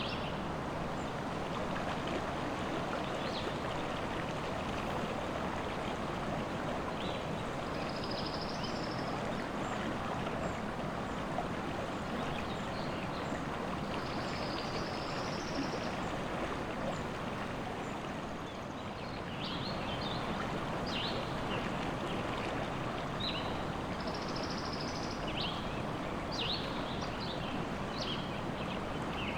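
River water rushing steadily, with songbirds chirping over it: scattered short high calls and a few brief trills.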